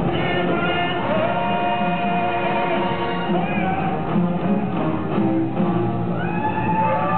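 Live stage-show music with singing voices holding long, gliding notes over a full accompaniment.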